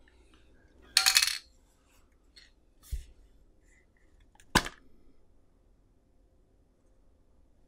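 An aerosol spray-adhesive can being handled: a ringing metallic clink about a second in, a soft knock, then a sharp click about four and a half seconds in as its plastic cap is pulled off the nozzle.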